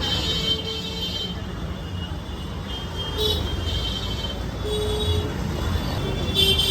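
Busy street traffic: a steady rumble of engines with vehicle horns honking in short toots, again and again.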